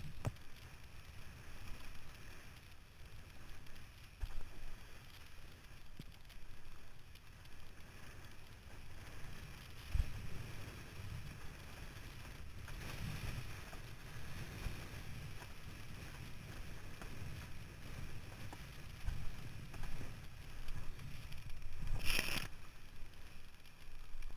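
Windsurf board running over choppy water: a steady low rush of water and wind against the camera, with occasional knocks of the board on the chop and a brief, louder splash near the end.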